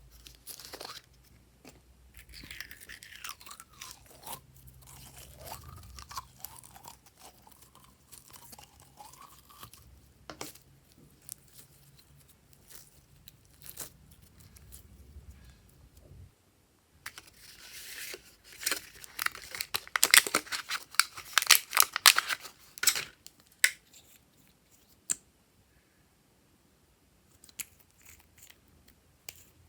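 Slime being kneaded and squeezed by hand, with scattered squelches and clicks. In the middle comes a louder stretch of rapid crackling and popping that lasts several seconds.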